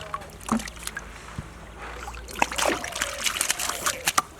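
Water and mud splashing and sloshing, with a run of short, sharp splashes in the second half.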